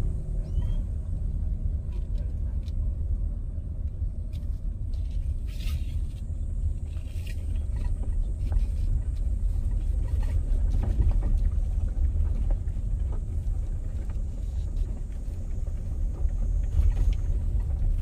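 Car driving slowly, heard inside the cabin: a steady low rumble of engine and tyres, with a few light clicks and knocks.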